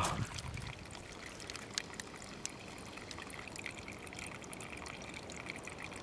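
Small spring of water trickling out of the ground, a faint steady trickle with a few light ticks.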